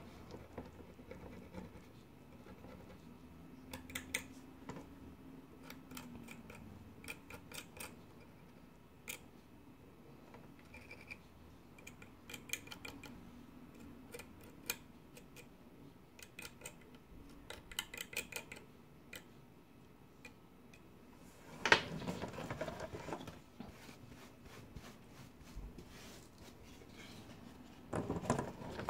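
Pointed metal tool picking and scraping grout out of the joints between glass mosaic tiles, in short bursts of fine scratches and clicks. A louder knock and rough scrape about 22 seconds in, and more handling noise near the end.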